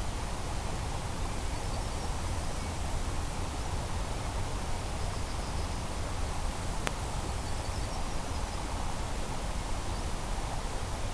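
Steady outdoor background noise, a rushing hiss with a strong low rumble like wind on the microphone, with faint high chirps a few times and a single sharp click about seven seconds in. No drone motor is heard.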